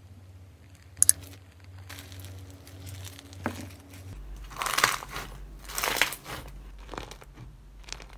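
Foam-bead slime (floam) squeezed and pressed by hand, crackling and crunching in bursts that are loudest about halfway through. A sharp double click about a second in.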